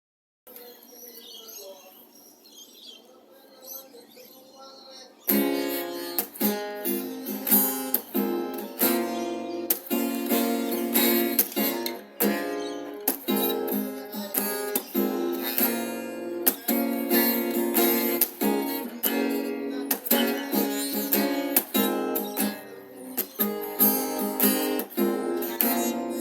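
Acoustic guitar being strummed, coming in suddenly about five seconds in after a faint, quiet start, then playing chords in a steady strumming rhythm.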